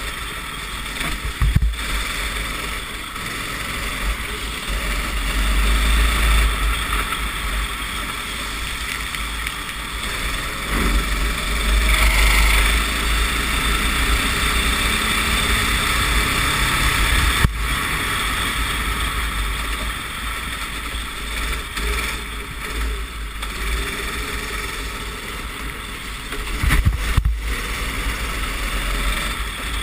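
Racing kart engine heard from the onboard camera, rising and falling with the throttle through the corners, under heavy wind buffeting on the microphone on a wet track. There are a few sharp knocks along the way.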